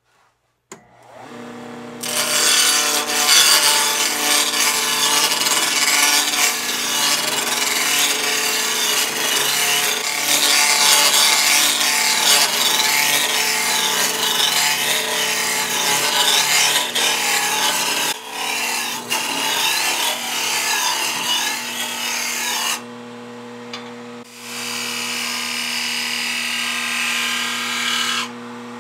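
Wood lathe spinning a block of white oak while a hand-held turning tool cuts it into a cylinder: a steady motor hum under loud, ragged cutting noise as the shavings come off. The cutting breaks off for a moment about three-quarters of the way through, starts again, and stops near the end, leaving the lathe running on its own.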